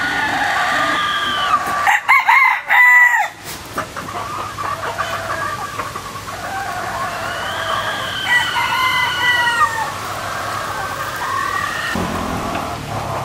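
Bantam roosters crowing: several long, drawn-out crows, the loudest about two seconds in and another long one around eight seconds, with some clucking between.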